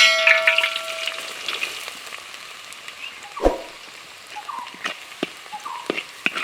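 Food frying on a hot pan. It opens with a metallic clang that rings for about a second, and the sizzle goes on with scattered light metal taps and one heavier knock about halfway through.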